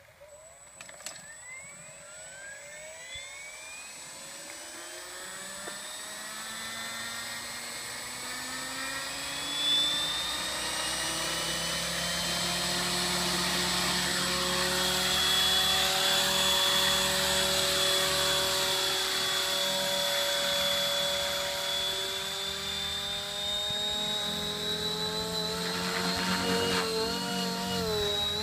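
Electric RC helicopter (MSH Protos 500 with a Scorpion brushless motor) spooling up. The motor, gear and rotor whine rises steadily in pitch over the first dozen seconds as the rotors come up to speed, then holds a steady pitch, getting louder. Near the end the pitch wavers as the load changes.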